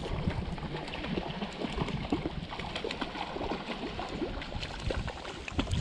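A hooked trout splashing and sloshing in the shallow water at the stream's edge as it is reeled in, with many small irregular splashes over the sound of the flowing stream.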